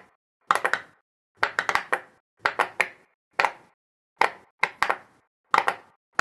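Silicone pop-it fidget toy bubbles being pressed, giving about seven clusters of quick, sharp pops, one to four pops each, with silent gaps between.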